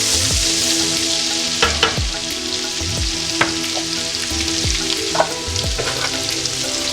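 Ginger-garlic paste sizzling in hot oil and butter in a pan, stirred with a spoon that clicks against the pan a few times.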